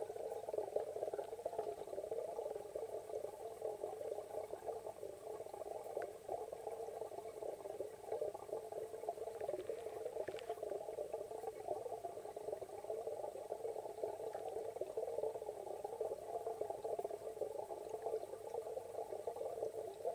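Muffled underwater noise picked up by a camera submerged in a pond: a steady, rapidly fluttering sound with a few faint clicks.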